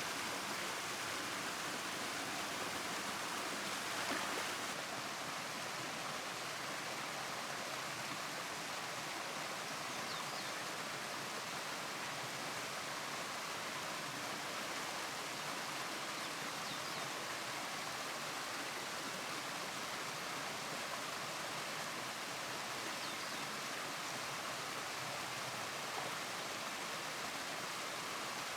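Steady rush of flowing river water, with a brief louder touch about four seconds in.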